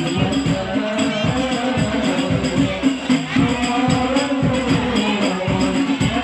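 Music with a fast, steady percussion beat under a melody.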